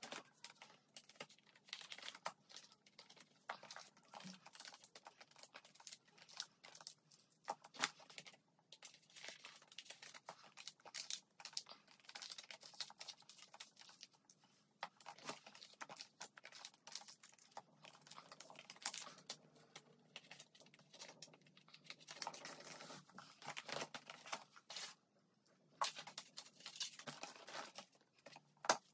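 Clear plastic photocard sleeves and wrappers crinkling and rustling as cards are handled and slid into binder pockets, with many small clicks and taps throughout.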